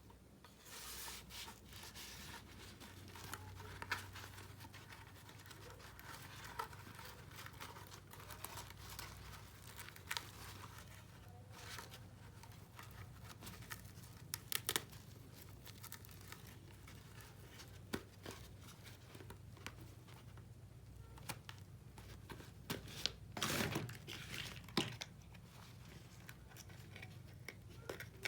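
Miniature toy kitchen set being handled: faint crinkling and tearing of packaging with scattered small clicks and taps, and a longer, louder rustle near the end.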